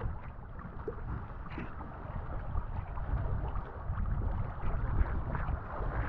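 Choppy sea water sloshing and splashing right at the microphone as it rides the surface, with small splashes from a snorkeler swimming close by.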